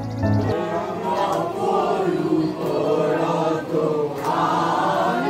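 Crowd of devotees chanting together in many overlapping voices. Steady background music cuts off about half a second in.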